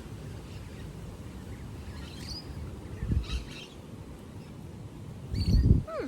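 Small birds chirping a few short times over a steady low rumble, with two louder low thumps, the louder one near the end.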